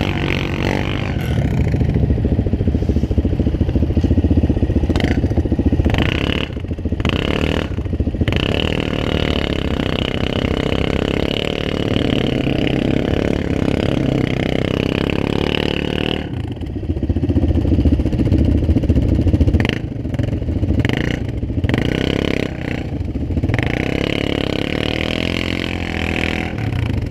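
ATV engine running hard under load, revving up and down as the quad's tires spin and dig in deep snow and ice without getting through. About two-thirds of the way in the revs fall away, then build again.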